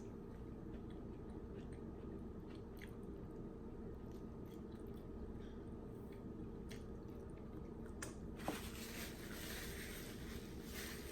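Close-miked chewing and biting of food, faint, with scattered small mouth clicks over a steady low room hum. About eight seconds in comes a louder stretch of crackly, crunchy noise.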